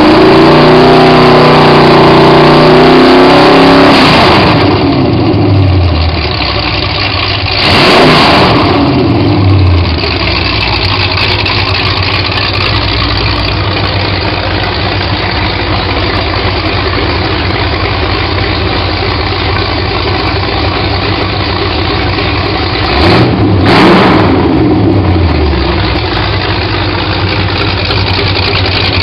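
Ford 302 small-block V8 running on a test stand through open headers: held at high revs at first, then dropping to idle about four to six seconds in. It is blipped briefly twice, about eight and twenty-four seconds in, each time falling back to a steady idle.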